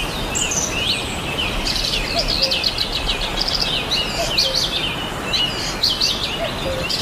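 Several small birds chirping and twittering, many quick overlapping notes that come thicker from about two seconds in, over a steady background hiss.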